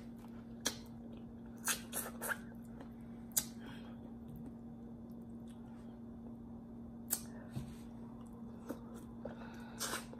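Close-up mouth sounds of eating stewed turkey neck bones by hand: scattered wet smacks and sharp clicks of chewing and finger-sucking, in small clusters with pauses between. A faint steady hum runs underneath.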